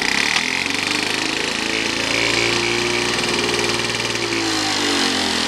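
Victa two-stroke lawn mower engine running steadily just after being started, its pitch wavering a little and dipping slightly near the end.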